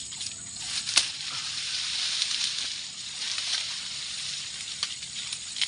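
Crickets chirring steadily over a rushing, rustling noise, with a sharp crack about a second in and a few lighter clicks near the end.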